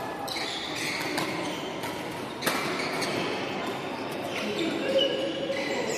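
Badminton hall ambience: rackets hitting shuttlecocks with sharp cracks, the loudest about two and a half seconds in, shoes squeaking on the wooden court floor, and scattered voices, all echoing in the large hall.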